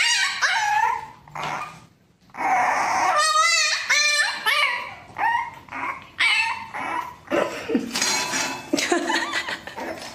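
A French bulldog puppy yipping and whining in a string of short, high-pitched calls that bend up and down in pitch, with a brief pause about two seconds in.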